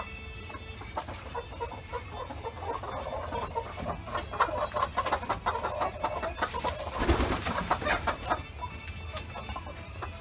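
Chickens clucking: many short, soft calls repeated in quick succession, busiest through the middle.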